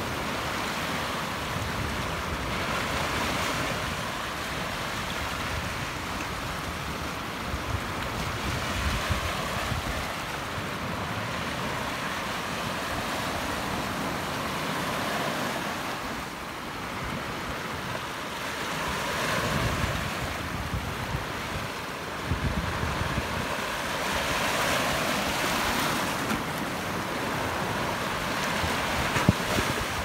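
Small sea waves washing over a low, flat rock shelf in a steady foaming wash that swells every few seconds, with wind buffeting the microphone.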